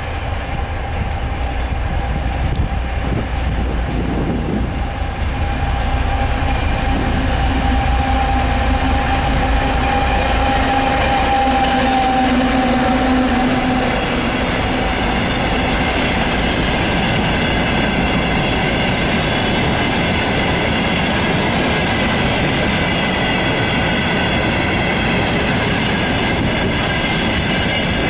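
ChME3 shunting locomotive's six-cylinder diesel engine approaching and passing close by, loudest about ten to thirteen seconds in. A long string of hopper wagons then rolls past, its wheels rumbling on the rails with a high, steady squeal.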